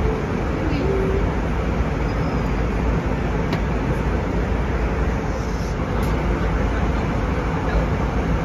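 Steady cabin noise of an Airbus A320 in flight: a constant rush of airflow and engine drone, even and unchanging.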